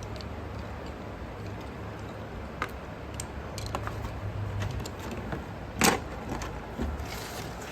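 Scattered light clicks and taps from small hard objects being handled, with one sharper click a little before six seconds in, over a steady low hum.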